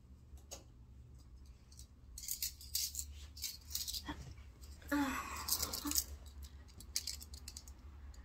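Small metal objects rattling and jangling as they are handled, a string of quick clinks starting about two seconds in.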